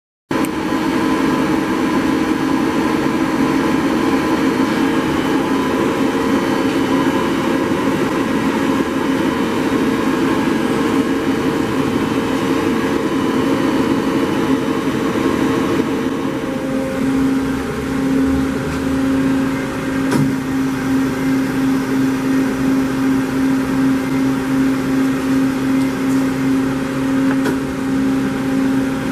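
Daewoo Puma 15 CNC slant-bed lathe running with its spindle turning a workpiece: a steady machine whine and hum. About halfway through, the tone changes to a single steady hum that swells and fades about one and a half times a second, with one brief click a little later.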